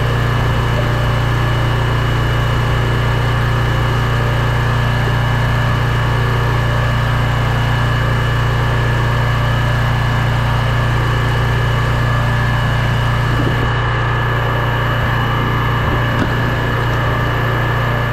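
Small gas engine of a firewood log splitter running steadily at constant speed.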